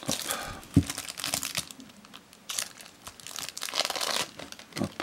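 Foil wrapper of a sealed Pokémon card pack crinkling and tearing in irregular bursts as it is opened by hand, with a single sharp knock a little under a second in.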